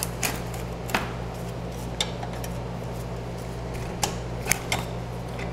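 A few short, sharp clicks and clinks of a wrench and a plastic drain pan being handled while the engine oil drain plug is undone, over a steady low hum.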